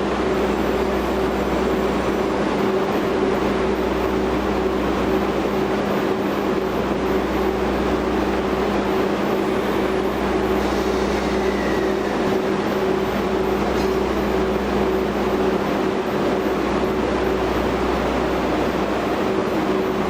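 Steady hum of a train, two unchanging tones over an even rumble, without wheel clatter.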